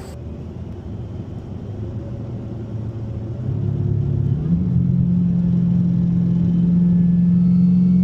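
A car engine running, its low note growing louder and then stepping up to a higher, steady pitch about four and a half seconds in, where it holds.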